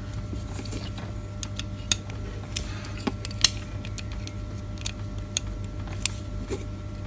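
Small sharp clicks and ticks, scattered and irregular, of a precision screwdriver working a screw and small metal and plastic parts of a camera's LED board being handled. Under them runs a steady low hum.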